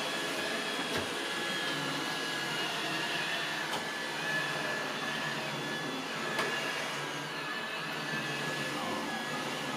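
iRobot Roomba 805 robot vacuum cleaning the floor: a steady, fairly quiet whir with a thin high whine, and a few faint clicks.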